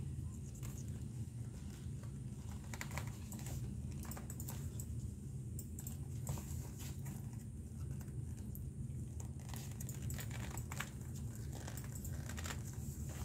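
Leather glove lace being threaded and drawn through the web holes of a baseball glove: irregular small scratches, rustles and clicks of leather handling. A steady low hum runs underneath.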